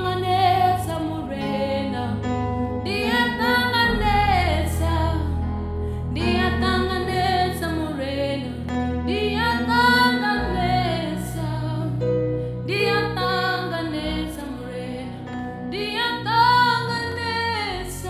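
A woman singing a gospel song into a microphone over backing music, in phrases a few seconds apart, above long held bass notes.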